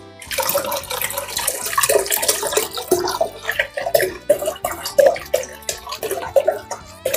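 Cherry syrup pouring from a bottle into a pot of sorrel drink, splashing and gurgling unevenly as it goes in.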